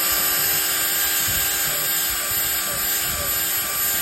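Drill spinning a scrub-brush attachment against a degreaser-coated surface: a steady motor whine under the brush's scrubbing noise.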